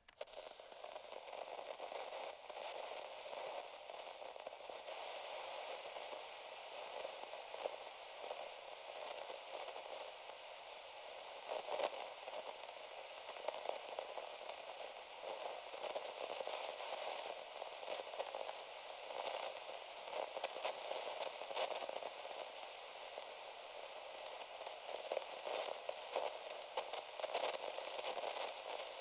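Radio static: a steady band-limited hiss, thick with rapid irregular crackles and pops.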